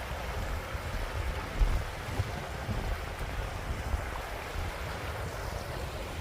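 Steady rushing road and engine noise of a moving coach, with irregular low rumbles.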